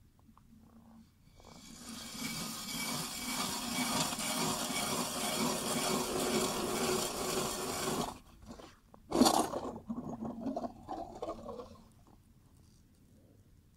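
Hand ice auger cutting into lake ice: a steady grinding scrape for about six seconds that stops, then a sharp knock about nine seconds in, followed by briefer scraping and crunching of ice.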